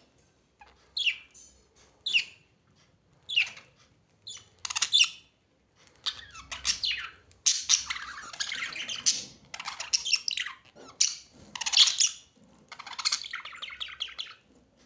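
Pet birds calling: a run of short, harsh, high-pitched calls in quick clusters, with brief pauses between them.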